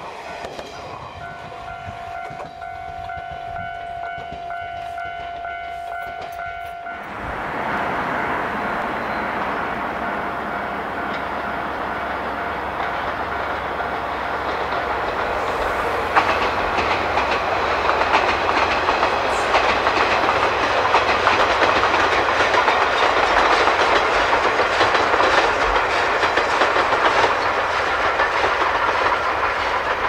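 Steam-hauled passenger train running past on jointed track: the rumble and clickety-clack of wheels over rail joints, growing louder through the second half. Before that, for several seconds, a steady high tone that cuts off abruptly about seven seconds in.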